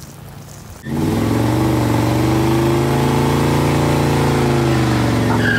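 Car engine held at high revs during a burnout, starting about a second in and running steadily, its pitch rising slightly and then easing back down.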